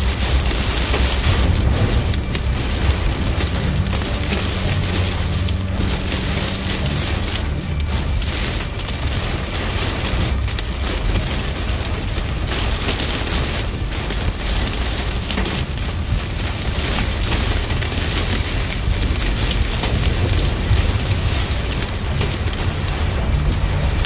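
Heavy rain beating on a moving car's windshield and roof, with sharp hits scattered throughout, over the steady low rumble of the car driving on a wet road.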